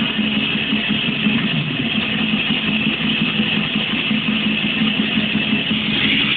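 Muffled, band-limited passage of a technical death metal recording: a low note pulsing rapidly under a dull, steady mid-range wash, with no vocals.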